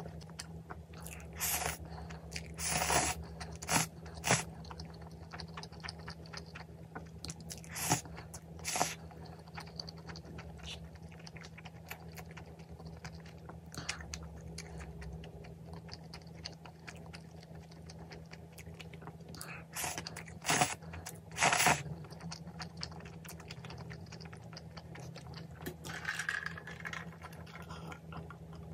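Close-up eating sounds: a person chewing and slurping spicy instant ramyeon noodles, with several short, louder slurps standing out, over a faint steady low hum.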